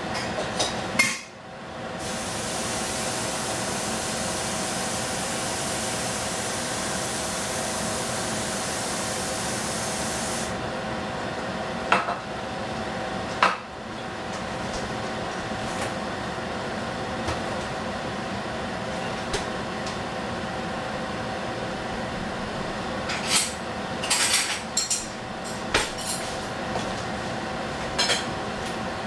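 Steady hiss and hum of a gas stove with food cooking in a covered stainless steel frying pan. A brighter hiss starts a couple of seconds in and cuts off suddenly after about eight seconds. Scattered sharp clicks and knocks of kitchenware come through it, several in quick succession near the end.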